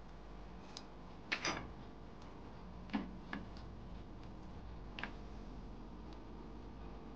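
A few light clicks and short crinkles of aluminium foil as fingers press shredded cheese onto the foil-lined baking tray, spread out over several seconds above a low steady hum.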